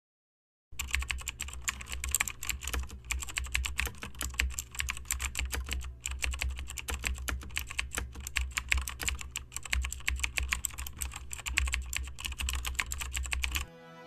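Rapid computer-keyboard typing clicks used as a sound effect for text typing out on screen, starting about a second in and stopping just before the end, over a steady low hum.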